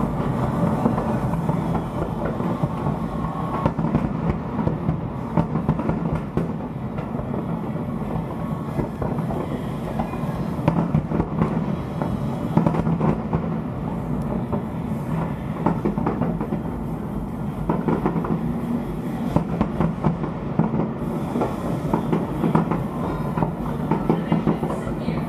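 Fireworks display: aerial shells bursting in a continuous barrage of rapid pops and crackles over a steady low rumble.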